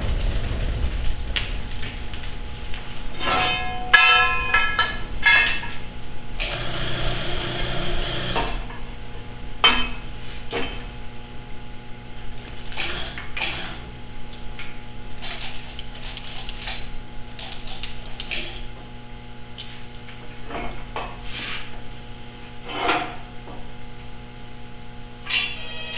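Steel being handled and fitted: irregular metal clanks and knocks, some ringing briefly, with a stretch of metal scraping a few seconds in. A steady low hum runs underneath.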